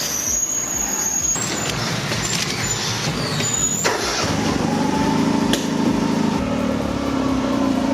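A car engine running: rough and noisy for the first few seconds, then settling into a steadier hum from about four seconds in.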